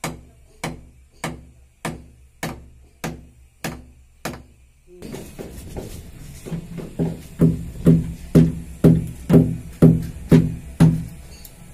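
Hammer driving steel nails with washers through the mounting holes of a concealed cistern frame into a masonry wall: steady single blows about every half second. About halfway through the blows become deeper, louder and a little quicker, about two a second.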